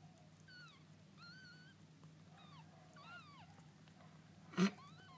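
Very young kittens mewing in a string of short, thin, high-pitched cries that bend up and down in pitch, over a low steady hum. A single sharp knock sounds near the end.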